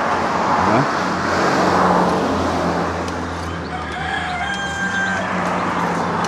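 A rooster crowing once, a held call of about a second and a half starting near four seconds in. Beneath it runs a steady low hum and a rushing noise, loudest in the first two seconds.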